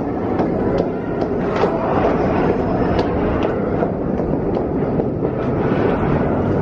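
New York City subway train running, a steady rumble with its wheels clicking over the rail joints two or three times a second.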